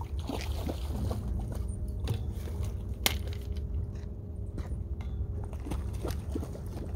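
Spinning reel being cranked while fighting a large yellowtail kingfish on a bent rod, giving light scattered clicks and ticks from its handle and gears, one sharper tick about three seconds in, over a steady low rumble.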